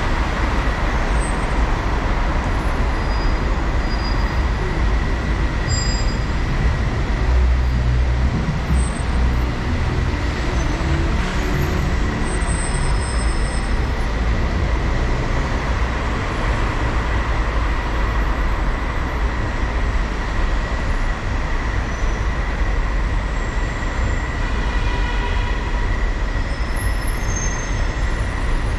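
Steady rumble of slow traffic in a road underpass, with tyres on the wet road surface and a faint steady high tone. A deeper rumble swells briefly about eight seconds in.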